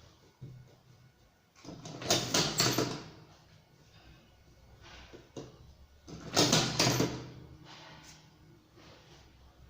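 Tobacco rolling machine being worked through two strokes about four seconds apart. Each stroke is a short sliding, rattling run with clicks.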